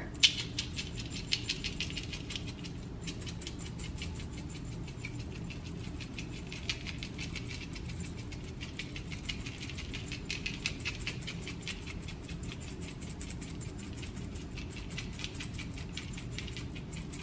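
Hand pepper grinder being twisted over a dish of cubed sweet potatoes, a long run of dense, fast fine clicks as peppercorns are cracked.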